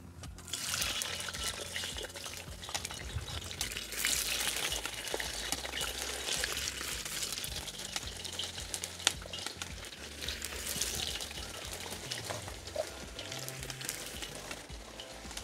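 Potatoes frying in hot vegetable oil in a kazan: a steady sizzle with many small pops. It starts as they go into the oil and is louder from about four seconds in.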